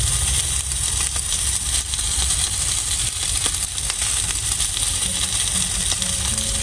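A piece of meat sizzling in a nonstick frying pan on a portable butane gas stove: a steady hiss dotted with many small pops, over a low rumble.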